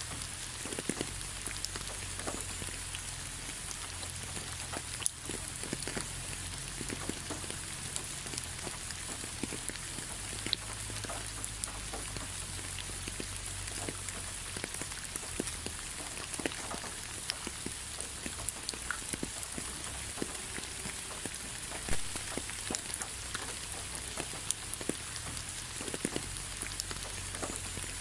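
Steady rain falling, with a constant hiss and scattered sharp hits of individual drops striking nearby.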